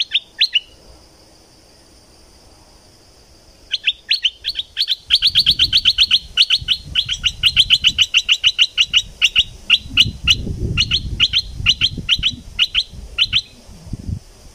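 Stripe-throated bulbul calling: a few sharp notes at the start, then, from about four seconds in, a long, fast run of sharp chirps, several a second, that thins out and stops near the end. A low rumbling noise sits underneath in the second half.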